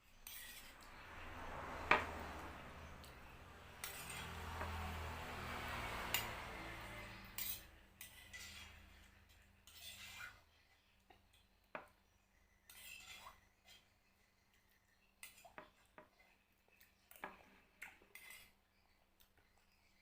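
Plate and utensils clinking during a meal, with a noisy stretch of handling and eating sounds in the first half and scattered short clicks after.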